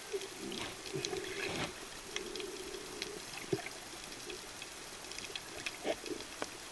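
Underwater sound through a camera housing: water moving around the microphone, with a low hum in the first three seconds, then scattered sharp clicks and pops and a louder cluster of them about six seconds in.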